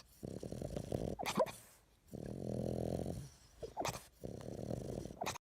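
A dog growling and grumbling in three low, pulsing bouts, with a couple of short whines between them.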